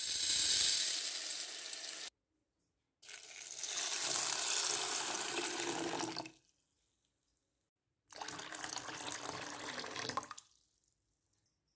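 Tap water pouring into a steel bowl of tapioca (sago) pearls to rinse them. It comes in three stretches of a few seconds each, cut off abruptly between them.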